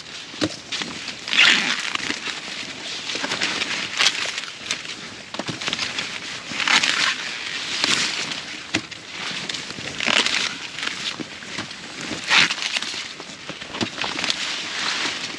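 Sweet corn ears being snapped off their stalks, with dry leaves and husks rustling and crackling. A rustling burst comes every couple of seconds, with sharp snaps among them.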